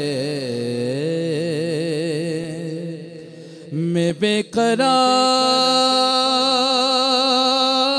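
A naat being sung: one voice drawing out a wordless, wavering melisma that fades about three seconds in, breaks into a few short notes, then settles into a long steady held note.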